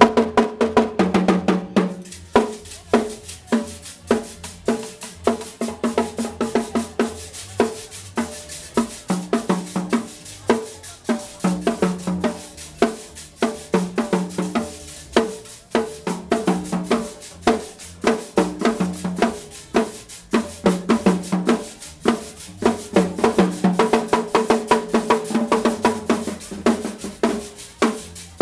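A marching band's drum section plays a parade cadence: snare drums over bass drum beats and cymbals, with dense, sharp strokes in a steady rhythm.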